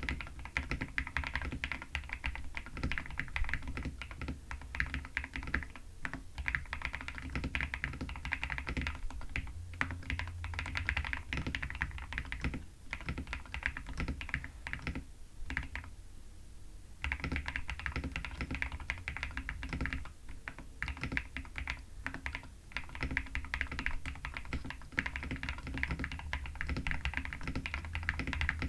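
Fast, continuous typing on an Akko 5075 mechanical keyboard fitted with Princess linear switches, with a short pause about halfway through.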